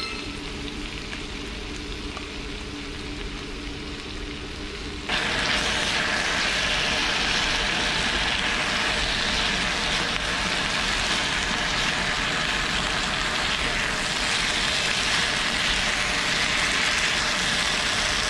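Meat and vegetables sizzling on a hot stone-coated griddle pan over a portable gas burner as they are stir-fried in doubanjiang sauce. The sizzle is fairly quiet at first, jumps suddenly louder about five seconds in, and then stays steady.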